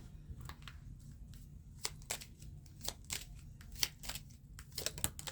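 Kipper fortune-telling cards being handled: a dozen or so light, irregular clicks and snaps.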